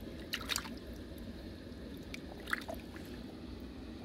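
Hands moving in a shallow muddy pool of water, with small splashes and drips: a cluster of sharp drips about half a second in and another about two and a half seconds in, over a steady faint background noise.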